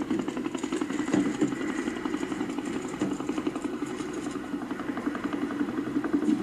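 An engine running steadily, a dense rumble with a fast, even pulse.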